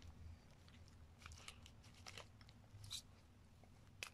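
Near silence, with a handful of faint soft clicks and crinkles from a baby's fingers pressing and patting a taped-down plastic bag filled with water, detergent and beads.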